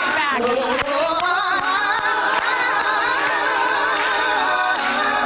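A man singing a gospel song a cappella into a microphone, holding one long note with vibrato that climbs in pitch in the first second or so.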